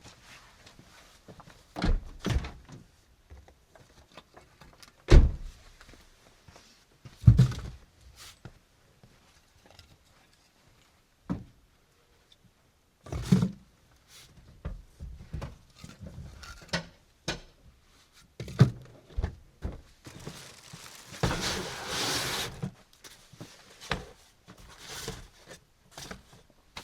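Irregular dull thumps and knocks, about a dozen spread out, with a rush of noise lasting about two seconds near the end.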